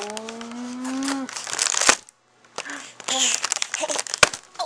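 A single held vocal sound lasting about a second, its pitch rising slowly. It is followed by crinkling and rustling of something being handled, with a few sharp clicks near the end.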